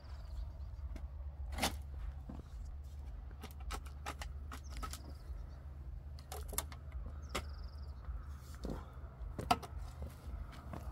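Steel shovel scraping into stony dirt and dumping loads into a metal wheelbarrow: sharp scrapes and knocks every second or so, at an uneven pace. A short high chirp repeats about every three seconds.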